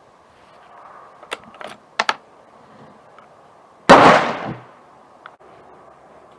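A few sharp clicks, then a single loud rifle shot about four seconds in that dies away within a second.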